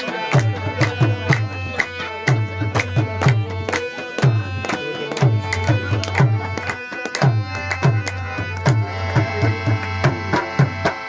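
Tabla and harmonium playing together. The tabla plays quick strokes, and its bass drum's deep strokes slide down in pitch, over the harmonium's held reedy notes.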